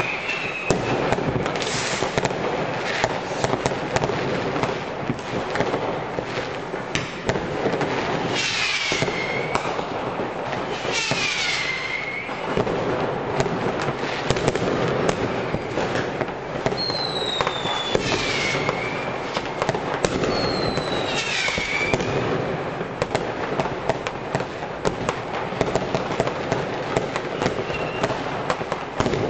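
New Year's Eve fireworks going off from many sources at once: a dense, unbroken crackle of firecrackers and rocket bangs. Several whistling rockets are heard over it, each whistle sliding down in pitch and then levelling off.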